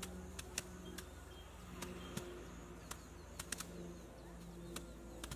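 Sheaves of harvested rice beaten by hand to thresh out the grain: irregular sharp strikes, sometimes two or three close together, over a faint low hum that comes and goes.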